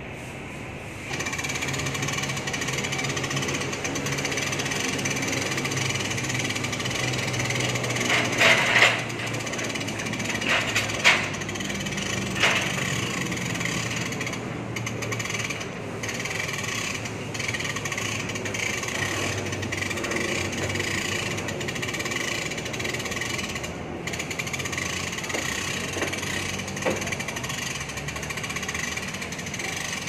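Mini crane's hoist motor running steadily as it winches an air-conditioner outdoor unit up on a rope, with a harsh rattling drone that starts about a second in. A few sharp clanks come between about 8 and 13 seconds in.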